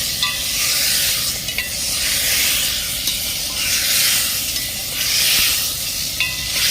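Chicken sizzling in hot mustard oil in a brass handi as it is stirred, the sizzle swelling with each stir about every second and a half, with a few brief metallic scrapes of the spoon on the pot.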